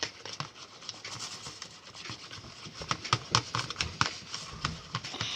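A thick, sticky mixture of white glue and cornstarch being stirred and worked, making irregular wet clicks and scrapes that are densest about three to four seconds in.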